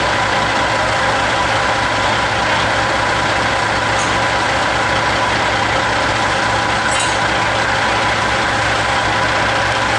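Log truck's diesel engine running with a steady, unchanging drone.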